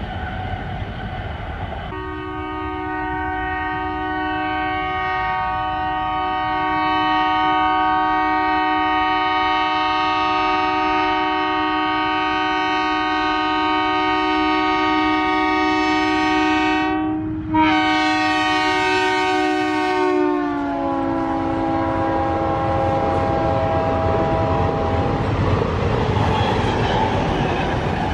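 Indian Railways DEMU's multi-tone horn sounding continuously for about eighteen seconds as the train passes. Its pitch drops as it goes by, and it fades out, leaving the rumble and wheel clatter of the passing diesel multiple unit.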